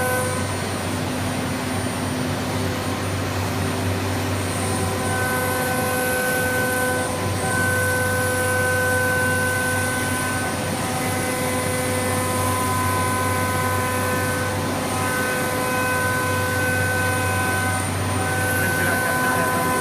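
CNC nesting router at work: a steady mechanical din with a low hum, and a high whine that drops out and comes back several times.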